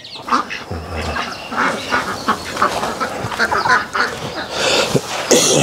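A flock of month-old ducklings cheeping and quacking in many short, overlapping calls, with a brief hiss of noise near the end.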